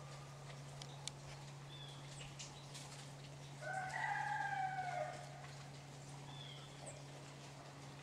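A single drawn-out animal call, about a second and a half long, rising and then falling in pitch, about halfway through. Faint short high chirps and light ticks sit around it over a low steady hum.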